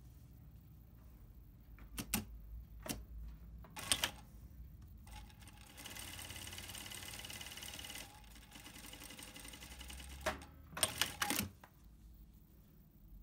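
Typical GC6880MD3Y industrial sewing machine stitching a short seam in denim, a steady fast buzz for about two seconds. Sharp mechanical clicks and clunks come before the seam and in a cluster near the end, from the machine's automatic presser-foot lifter, backtack and thread cutter.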